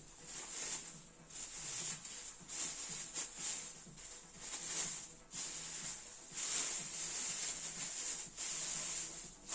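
Can of expanding polyurethane foam spraying in repeated hissing bursts with short pauses between them, as foam is blown into the box.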